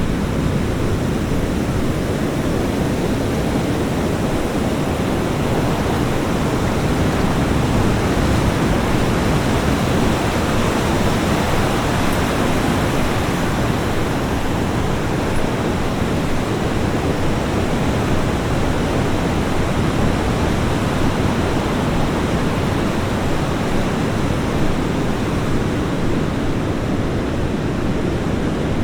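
Ocean waves washing onto a beach: a steady, dense hiss of surf with only slight swells and no distinct single breakers.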